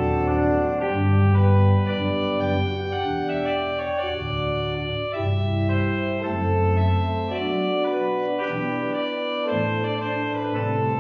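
Organ playing slow, sustained chords, the chords changing every second or so; the bass notes drop out for a couple of seconds past the middle.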